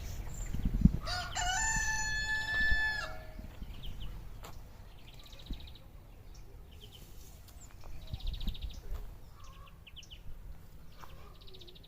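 A rooster crowing once: a single pitched call of about two seconds, starting about a second in. Short high chirps follow.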